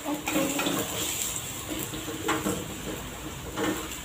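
Wooden spatula stirring and scraping garlic around a nonstick frying pan, with a few sharp knocks of the spatula against the pan, over garlic frying in a little oil.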